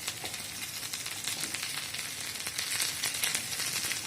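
Ginger and turmeric paste sizzling in ghee while roasting on low heat, a steady fine crackle that grows a little louder in the second half.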